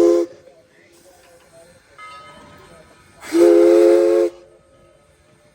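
Southern Railway 4501's Princeton three-chime steam whistle blowing short blasts, its three notes sounding together as a chord over a hiss of steam. One blast cuts off just after the start, and a second blast of about a second sounds a little past the middle.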